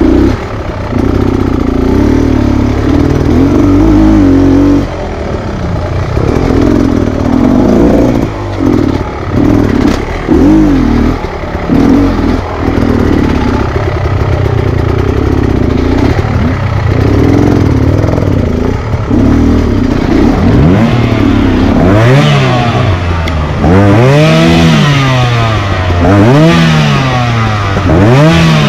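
Enduro dirt bike engine working hard over rough ground, revving up and dropping back again and again as the throttle is opened and shut. Near the end come about four big rev swells, each rising and falling in pitch, roughly two seconds apart.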